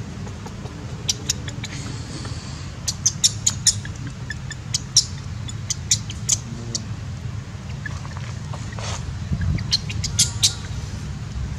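Clusters of very short, high-pitched chirps and squeaks, about a second in, at three to four seconds and again near the end, over a steady low hum.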